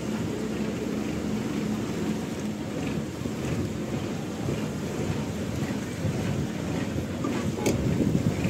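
Fishing boat's engine running steadily under way, with wind buffeting the microphone. A single sharp knock sounds a little before the end.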